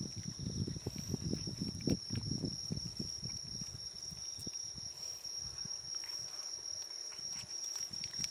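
A cat licking and chewing at a squeezed tube of lickable cat treat close up: quick, wet smacking and clicking sounds, busiest in the first three seconds, then fewer. Behind it, insects keep up one steady high trill.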